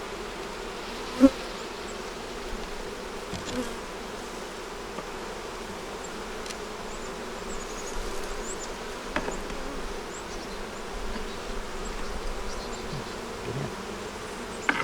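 Honey bees buzzing steadily around an open hive, with one sharp knock about a second in and a few lighter taps from hive parts being handled.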